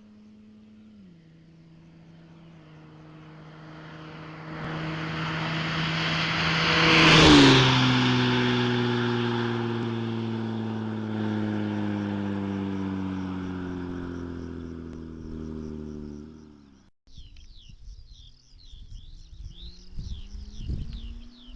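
Jaguar XJ40's straight-six engine through a custom stainless-steel exhaust as the car drives past. It grows louder on approach, is loudest about seven seconds in, where the pitch drops sharply, then falls away with a slowly sinking pitch. The sound cuts off suddenly about seventeen seconds in, after which birds chirp.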